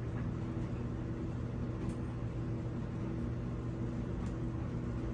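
Clothes dryer running, a steady hum with an even whoosh as the drum turns, its clogged vent just cleared of lint.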